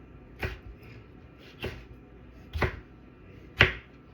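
Kitchen knife chopping on a cutting board: four single cuts about a second apart, the last the loudest.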